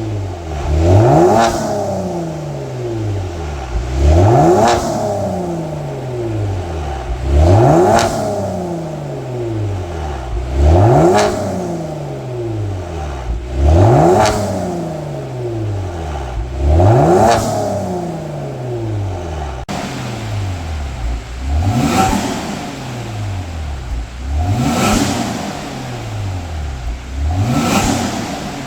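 Kia Stinger 3.3 twin-turbo V6 through an aftermarket variable exhaust, being revved in neutral about every three seconds, nine times. Each rev snaps up sharply and then falls away slowly.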